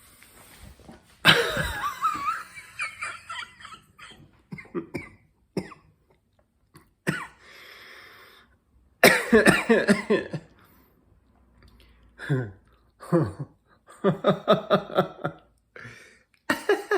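Human laughter: several separate bursts of rapid, pulsed laughing, each a second or two long, with short quiet gaps between them.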